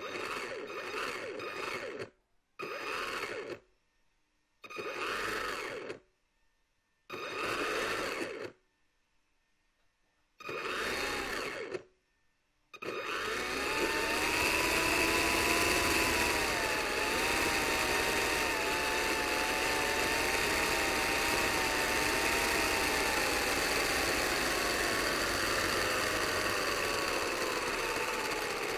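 Toy propeller plane's small electric motor and propeller whirring in five short bursts of one to two seconds with silent gaps, then running continuously from about halfway through, its whine wavering up and down in pitch.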